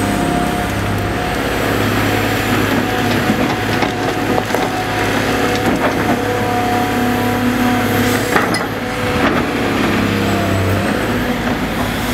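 Cat 345BL tracked excavator's diesel engine running steadily under working load, with several sharp knocks of rock and debris against the steel bucket, the loudest about eight seconds in.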